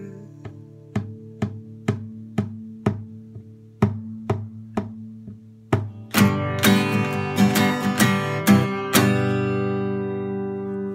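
Acoustic guitar outro with no singing: single strums at a steady beat of about two a second, then a quicker run of louder strums, ending on a final chord left ringing out and fading.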